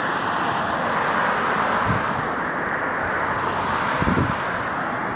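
Road traffic on a multi-lane main road: cars passing with a steady rush of tyre and engine noise.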